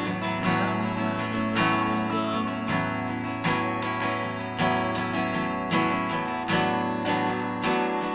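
Acoustic guitar strummed in a steady rhythm, about two strokes a second, without singing.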